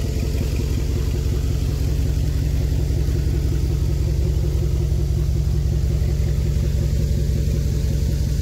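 Truck engine running steadily while driving slowly, a low, even drone heard from inside the cab.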